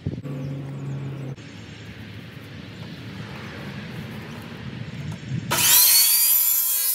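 Electric miter saw switched on about five and a half seconds in: a rising whine as the blade spins up, then a loud, steady run as it cuts the square vinyl fence-post sleeve. Before it starts there is only a steady low background noise.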